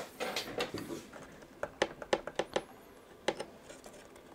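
Small hand tools clicking and tapping against the plastic and metal parts inside an opened iMac as its cooling fan is worked loose: a string of light, irregular clicks.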